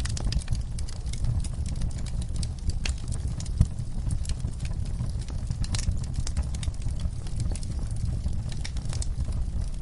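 Wood fire in a fireplace crackling: irregular sharp pops and snaps over a steady low rumble of the flames, with one louder pop about three and a half seconds in.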